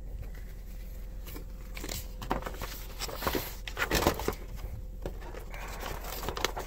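Paper rustling and crinkling as a printed instruction booklet is handled and its pages are turned, with scattered light knocks; the handling is loudest about four seconds in, over a low steady hum.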